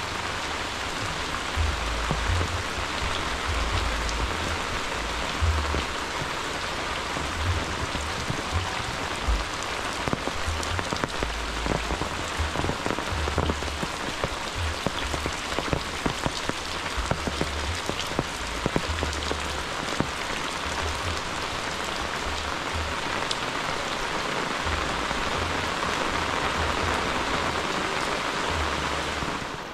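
Steady rain falling, with many close, sharp taps of drops striking nearby surfaces and irregular low rumbles underneath.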